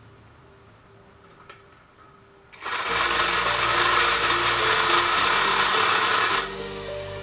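Handheld electric drill boring a hole through a metal pillar: a loud, steady drilling noise starts about two and a half seconds in and cuts off after about four seconds.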